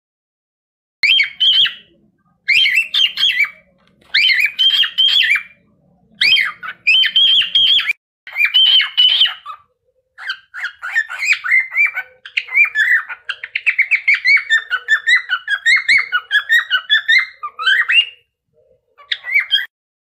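Cockatiel calling: several short whistled phrases that sweep up and down, then, from about ten seconds in, a fast run of short chirping notes, about five a second.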